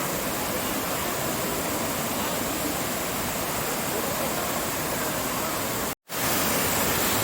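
Steady rush of water from a waterfall, an even hiss with no pauses; it cuts out completely for a split second about six seconds in and comes back slightly louder.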